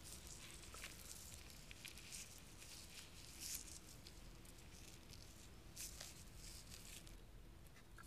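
Near silence: a faint hiss with scattered small rustles and ticks.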